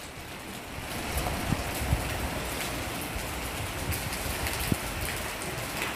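Steady rain falling, an even hiss, with a few low thumps about one and a half, two and nearly five seconds in.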